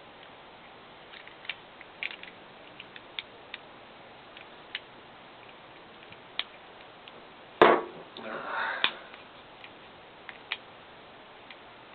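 Small parts of a puzzle-type model tank kit clicking and tapping as they are handled and pressed into place, with one sharp, louder snap about seven and a half seconds in, followed by a brief rustle.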